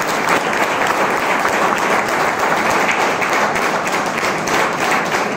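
A student audience applauding: a steady round of clapping from many hands.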